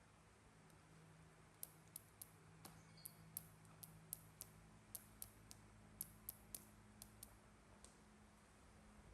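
Near silence broken by a run of faint, sharp clicks, about three a second, over a low steady hum.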